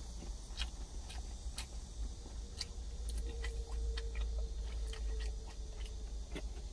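A person chewing food, with scattered light clicks of wooden chopsticks against a stainless steel container, over a steady low hum.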